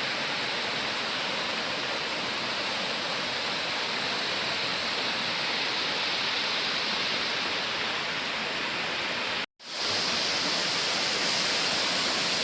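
Waterfall rushing steadily. About nine and a half seconds in it cuts out completely for a moment, then carries on slightly louder.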